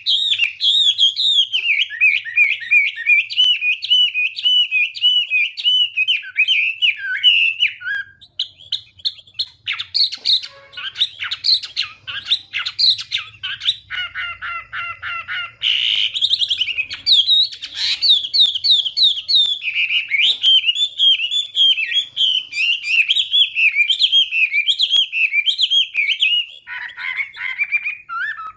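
Chinese hwamei (melodious laughing thrush) singing a long, rich song of rapid warbled and whistled phrases. About eight seconds in the song thins briefly, then gives way to sharp clipped notes and a quick run of repeated notes before the flowing warbling picks up again.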